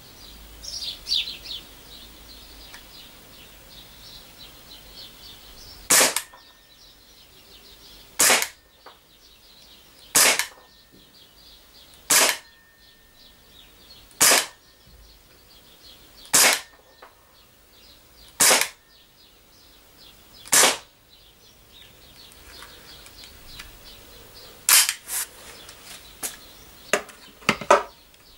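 Umarex H&K USP blowback CO2 BB pistol firing single aimed shots: eight sharp cracks evenly spaced about two seconds apart, each with the slide snapping back. Two more shots come close together near the end, followed by several shorter, quieter clicks.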